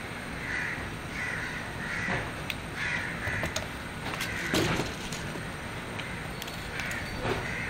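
Small metal parts clicking and knocking as a nut and a white aluminium printer plate are handled, the loudest knock about halfway through. A bird calls over and over in the background.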